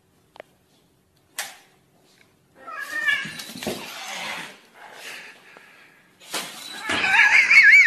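Cat giving angry cries while squaring off with a puppy: a drawn-out cry near the middle and a wavering, high cry near the end, after a nearly silent start broken by a click.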